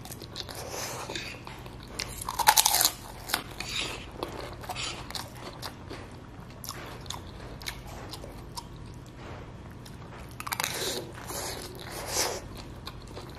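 A man chewing and slurping a mouthful of Indomie goreng fried noodles mixed with ketoprak, with many short wet clicks. The loudest burst comes about two and a half seconds in, and another run of slurping comes near the end as noodles are drawn into the mouth.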